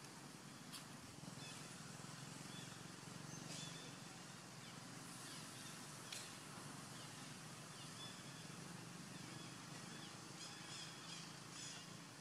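Faint outdoor ambience: a steady low hum and hiss with scattered short, high, falling chirps, several in quick succession near the end.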